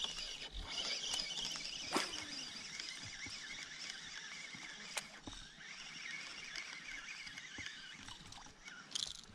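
Quiet river ambience from a small fishing boat: a steady high-pitched hiss with light water sloshing, broken by a few sharp knocks, one about two seconds in and another about five seconds in.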